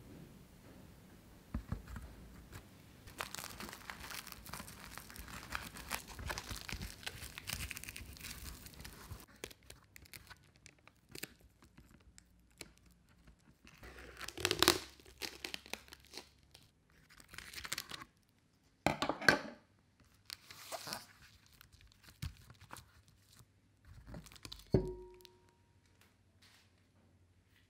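Clear plastic cake collar sheet crinkling and rustling as it is handled and fitted around a cake inside a steel cake ring: first a continuous rustle for several seconds, then a handful of separate crackles and swishes. Near the end, a sharp metallic clink with a brief ring.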